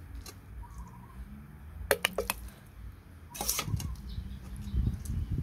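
Utensils clicking and knocking against an earthenware mortar as soft cooked jackfruit flesh is added: a few sharp clicks about two seconds in and a louder knock about three and a half seconds in. Soft dull thuds follow, the wooden pestle and food being worked in the mortar.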